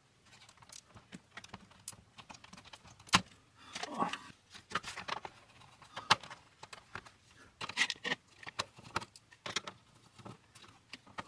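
A screwdriver working screws on a Commodore 64 mainboard: a run of small, irregular metallic clicks and scrapes, with a sharp knock about three seconds in.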